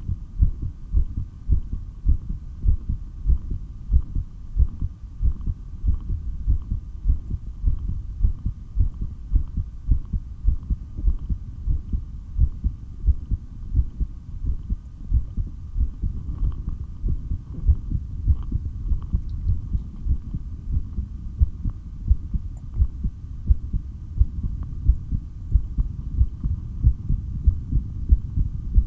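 A person's heartbeat heard through a stethoscope, pounding in a steady, even rhythm of low thuds over a faint hum. It is the heart of someone breathing as little as possible during long breath-holds.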